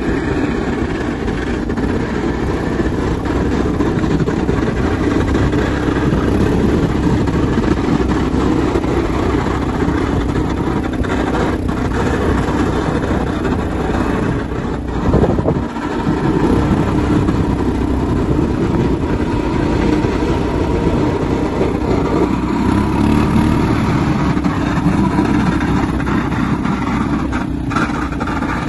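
Steady vehicle engine running with rumbling road noise, dipping briefly about halfway through.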